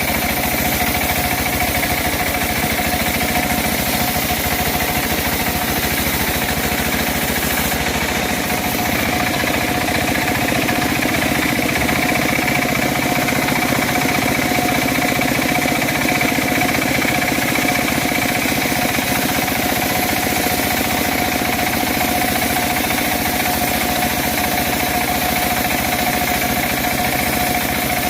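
Home-built bandsaw sawmill running steadily: the drone of its engine with two steady whining tones on top, and a little more body to the sound from about a third of the way in.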